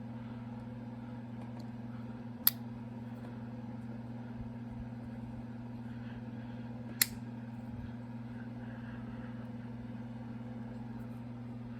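Steady low hum with two sharp, short clicks about four and a half seconds apart.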